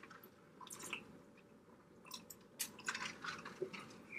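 Faint wet chewing and mouth smacks from eating seafood in butter sauce: a few short smacks about a second in, then a busier run of them near the end.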